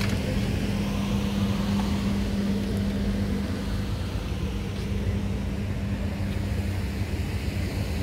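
A steady low mechanical hum over a constant rumble; the hum weakens a little near the end.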